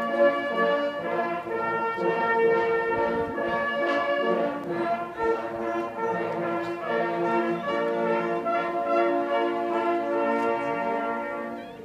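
An ensemble of hunting horns playing a slow fanfare in several parts, held chords changing every second or so, with a short break near the end.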